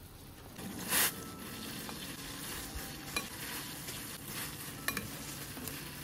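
A pot boiling hard on the stove, a steady hiss of bubbling that starts about half a second in. A brief loud burst of noise comes just after a second in, and a few light clicks follow later.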